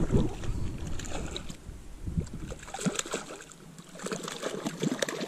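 Irregular water splashes as a hooked fish thrashes at the surface of a lake and a landing net is dipped in to scoop it, with a loud splash right at the start.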